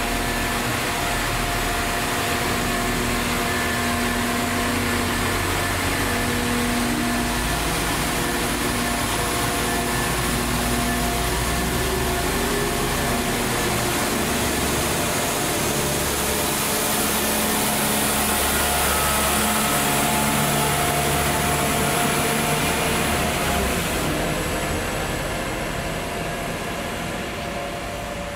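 Class 172 Turbostar diesel multiple unit pulling away, its underfloor diesel engines running under power with a steady drone whose tones shift as it gathers speed, easing off slightly near the end.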